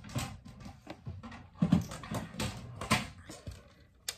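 Craft supplies and paper packaging being handled on a table: a string of irregular taps, knocks and rustles.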